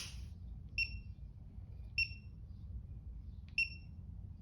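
Digital Snap-on torque wrench giving three short high beeps, spaced a second or more apart, as flywheel bolts are snugged. A sharp click comes right at the start.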